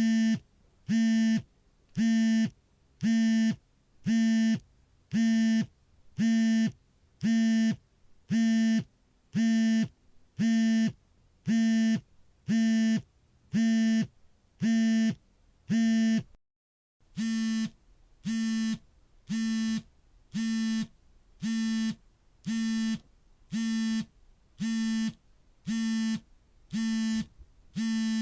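Smartphone vibration motor buzzing in a steady repeating pattern of alarm pulses, each about half a second long and about one a second. There is a short break about sixteen seconds in, after which the pulses are a little quieter.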